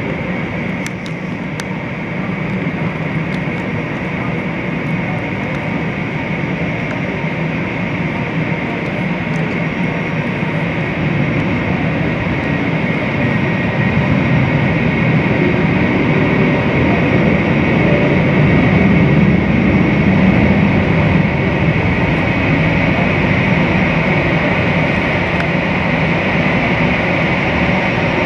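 Airbus A320's jet engines at taxi idle: a steady high whine over a low rumble, growing louder as the airliner rolls up toward the gate, heard through terminal glass.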